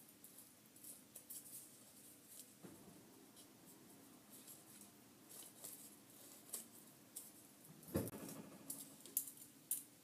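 Scissors snipping through paper in short, irregular, faint cuts, with one louder bump about eight seconds in.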